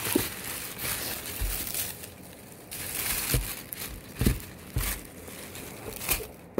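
Tissue paper and bubble wrap crinkling and rustling in bursts as packing is pushed aside in a cardboard shipping box, with several dull bumps of handling.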